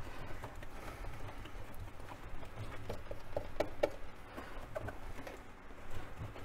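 Cloth towel rubbing over the plastic dust cover of a Sherwood turntable as it is wiped down, with a few short squeaks and light taps in the middle.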